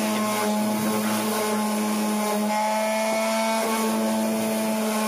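Electric SKIL orbital sander running steadily against a wooden 2x4 piece: a constant motor hum with a few held tones over the hiss of the pad on the wood.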